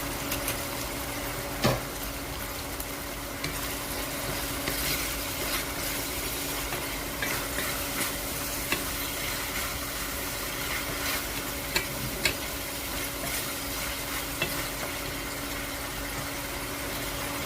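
Food sizzling as it fries in a pan and is stirred, with sharp clicks of the utensil against the pan several times, over a steady low hum.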